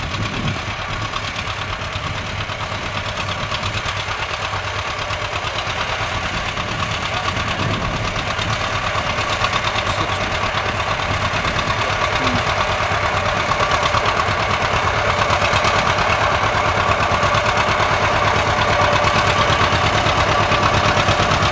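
Vintage John Deere two-cylinder tractor engine chugging steadily while pulling a plow under light load, growing gradually louder through the second half as it comes closer.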